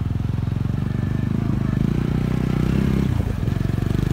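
A vehicle's engine running as it travels, with a low, steady pulsing note that dips briefly in pitch about three seconds in.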